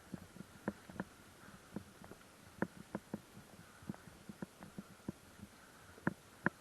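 A run of irregular soft knocks and clicks, a few each second, over a faint steady hum.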